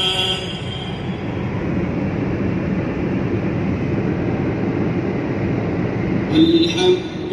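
Steady road and tyre rumble inside a car cruising at motorway speed. A chanted Quran recitation fades out about a second in and comes back, louder, near the end.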